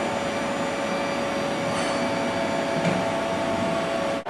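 Samich Legend 530 floor grinding machine running steadily: an even electric-motor hum with a steady whine.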